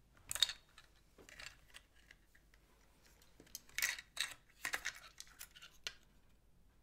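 Small plastic clicks and scrapes from hands working a wire connector loose inside a plastic robot-pet casing, in short scattered bursts, the loudest about half a second in and again about four seconds in.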